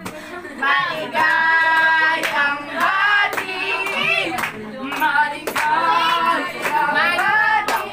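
A voice or voices singing in long held notes, with scattered hand claps.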